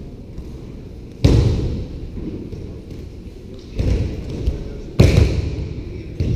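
Judoka's bodies landing on judo mats: three heavy thuds, about a second in, near four seconds and at five seconds, each echoing in the hall.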